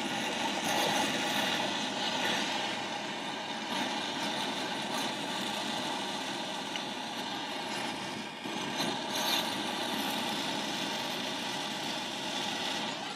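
Handheld gas torch burning with a steady hissing flame, held on a turbocharger's aluminium compressor wheel to heat it.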